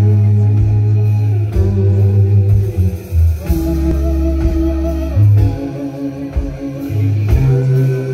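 Live rock band playing: sustained electric bass notes changing every second or so under held guitar notes, loud and full.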